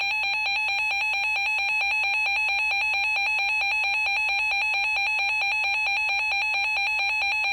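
Emergency Alert System attention signal: a loud, steady, harsh electronic alert tone that announces an emergency alert.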